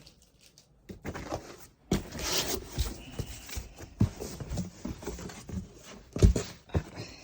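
A large cardboard box being opened and its packaging handled: irregular scraping, rustling and tearing, with several sharp knocks, the loudest about six seconds in.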